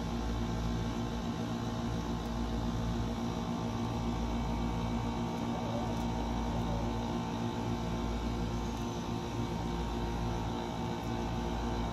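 Steady machine hum: an even, unbroken drone with a low buzz and a layer of noise over it.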